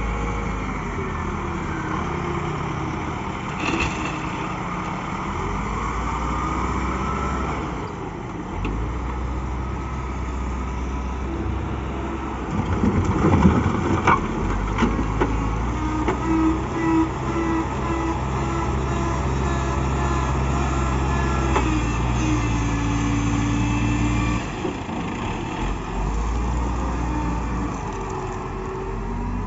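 Caterpillar 950B wheel loader's six-cylinder diesel engine working under load, revving up and dropping back as it lifts and tips buckets of aggregate. About halfway through there is a clatter of material pouring from the bucket, followed by a series of short beeps.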